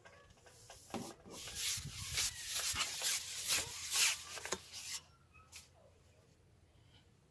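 Carbon fishing pole rubbing and scraping as it is gripped and slid back through the hands, a run of rasping scrapes from about a second in that dies away after about five seconds.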